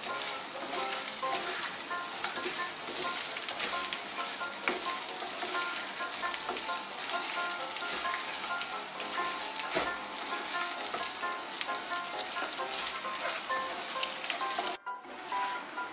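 Pieces of kakrol (spiny gourd) sizzling in oil and spice paste in a frying pan as a spatula stirs them, with a few sharp taps of the spatula against the pan. The sizzle drops out for a moment near the end.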